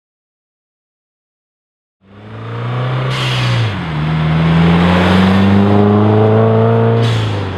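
Subaru WRX turbocharged flat-four through a titanium single-exit catback exhaust, accelerating under load after about two seconds of silence. The pitch dips briefly at a gear change about four seconds in, then climbs steadily. A short hiss comes with the change and again near the end.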